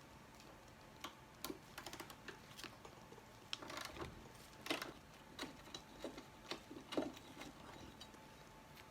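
Faint, irregular clicks, taps and light knocks, a couple of dozen scattered with no steady rhythm, a few louder ones in the middle, from tools or metal parts being handled during exhaust work.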